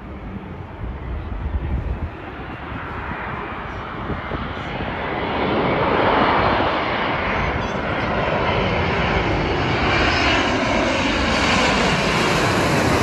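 Twin-engine jet airliner on approach with its landing gear down, passing low overhead. The jet engine roar builds over the first few seconds and stays loud through the second half as the plane comes overhead.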